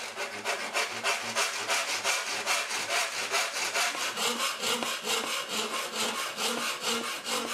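Hand file rasping back and forth in quick, even strokes, several a second, along the cut edge of a steel PC case panel, cleaning up and straightening the edges left by Dremel cutting.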